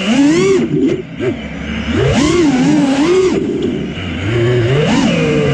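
FPV racing quadcopter's brushless motors and 4.9-inch props whining, the pitch swinging rapidly up and down with the throttle. The pitch dips low about three and a half seconds in as the quad rolls over, then climbs back up.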